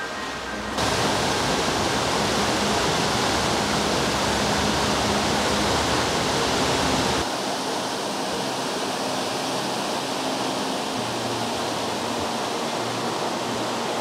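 River water rushing loudly, cutting in suddenly about a second in. About seven seconds in it changes to a lighter rush with less depth.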